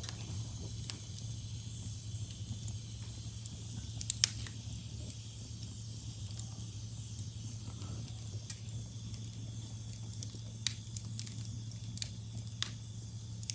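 Log fire burning in an open cast-iron fireplace: a soft steady hiss with a few sharp crackles and pops, the loudest pair about four seconds in and several more near the end. A steady low hum runs underneath.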